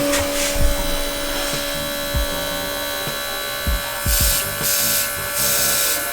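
Cordless mini air compressor running with a steady buzzing hum as it feeds an airbrush. About four seconds in, several short hissing spurts of spray come from the airbrush. A few soft knocks sound from handling.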